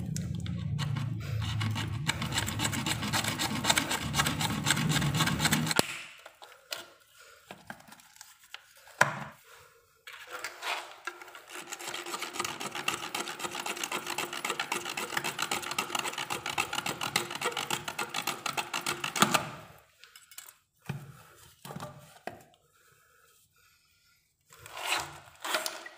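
Hacksaw cutting through a blue plastic water pipe with quick back-and-forth strokes: one spell of sawing for about six seconds, a pause of a few seconds with a couple of knocks, then a longer spell of sawing that stops about three quarters of the way through.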